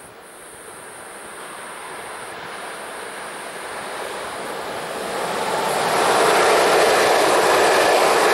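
Locomotive-hauled InterCity train with a HellasSprinter class 120 electric locomotive approaching and passing close below. Its rush of wheels on rails grows steadily louder and is loudest from about six seconds in, as the coaches go by.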